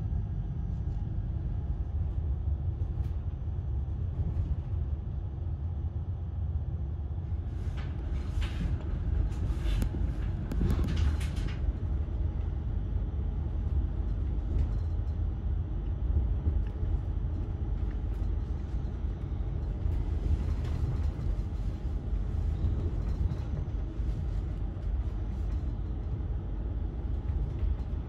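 Running noise inside a moving railjet passenger coach: a steady low rumble. About eight seconds in comes a few seconds of sharp clattering clicks.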